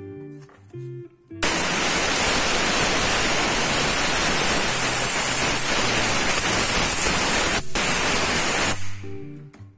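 Compressed-air blow gun giving a loud, steady hiss, blowing dirt out of the fuel-pressure-regulator seat in a fuel pump module's flange. The hiss starts about a second and a half in, breaks off very briefly near the end, then stops.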